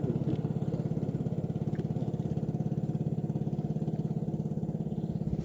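A boat's engine idling steadily, a rapid even putter.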